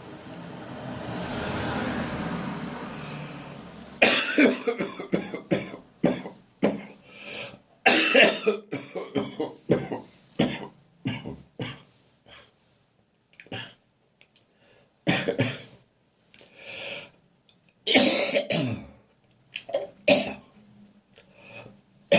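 Harsh, throaty chesty cough from a head cold: repeated bouts of hacking coughs with throat clearing. The coughing starts about four seconds in, after a rush of background noise that swells and fades.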